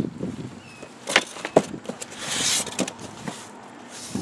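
Packaging being handled: a few sharp knocks and taps as parts and a long cardboard carton are moved in a box, with a brief rustle of packing material about two seconds in.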